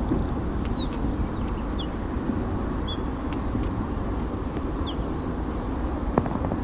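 Nature ambience: insects chirping in rapid repeated pulses, with scattered short bird chirps and a brief bird trill about a second in, over a steady low noise. A single sharp click sounds near the end.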